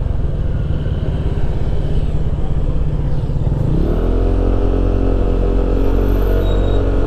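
Motorcycle engine running under a steady low rumble while riding. A little past halfway the engine pitch rises as it accelerates, then holds steady.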